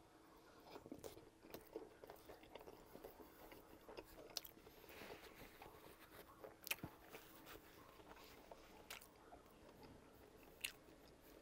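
Faint close-miked chewing of a mouthful of hot dog in a soft bun: scattered small wet clicks and smacks, with a couple of louder ones about two-thirds of the way through and near the end.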